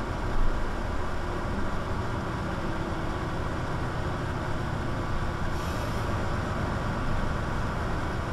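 Mercedes-Benz Citaro C2 G articulated bus's diesel engine running steadily under way, a steady low hum with a brief louder bump about half a second in and a short high hiss around six seconds in.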